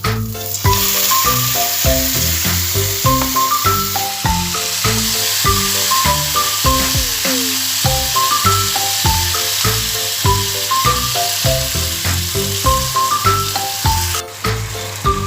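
Background music with light, marimba-like mallet notes over a steady sizzle of food frying in a pan. The sizzle cuts off suddenly about a second before the end.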